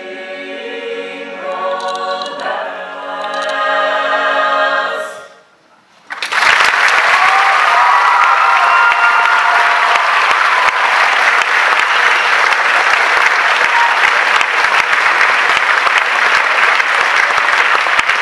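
Mixed-voice choir singing and holding a final chord that swells and cuts off about five seconds in. After a second of near silence, the audience breaks into steady applause.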